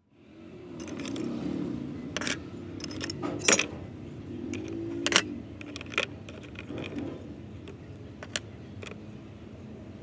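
Small metal lighter parts clicking and clinking against a clear plastic box as they are lifted out of a liquid soak, several sharp irregular clicks over a low steady background.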